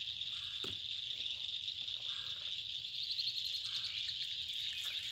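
Steady high-pitched chorus of insects, with a few fainter, lower calls and a single small click about half a second in.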